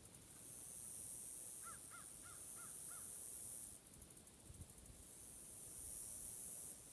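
A crow cawing five times in quick succession, short calls about a second and a half in, over a steady high-pitched hiss of woodland background.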